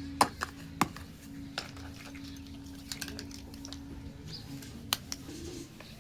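Sharp clicks and taps of small plastic toy kitchen pieces being handled, about seven in a loose, irregular run, the loudest near the start. A faint steady low hum sits underneath and stops about two-thirds of the way through.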